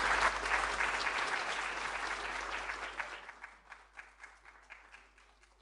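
Audience applauding, the clapping fading away and thinning out to a few scattered claps near the end.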